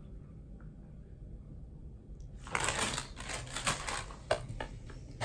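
Rustling and clicking handling noise, with several sharp clicks, starting about two and a half seconds in after a quiet stretch.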